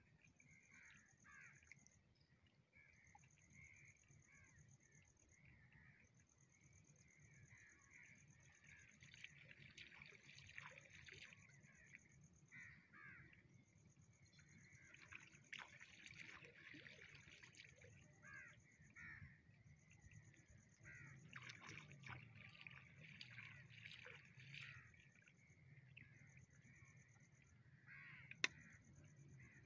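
Faint birds calling over and over, with an insect trilling in short repeated stretches. One sharp click near the end.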